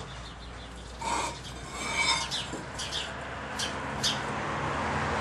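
Pavers being handled and turned over on a pallet: scraping and rubbing, with a few sharp clacks as they knock together between about two and a half and four seconds in.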